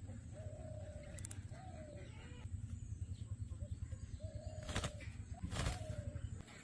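Faint bird calls: about four short low-pitched notes spaced through the stretch, over a steady low rumble, with two sharp clicks about five seconds in.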